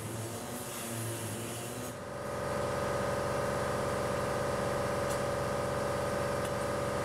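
Air-powered sheet-metal cutting tool hissing as it finishes a cut through a strip of sheet steel. About two seconds in, a louder, steady pitched mechanical drone takes over and holds.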